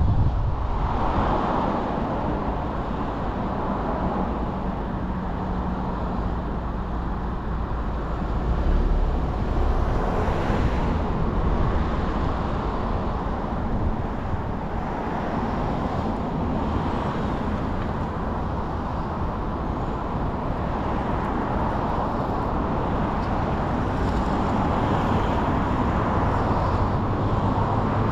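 A car driving: steady road and engine noise that swells and eases a few times.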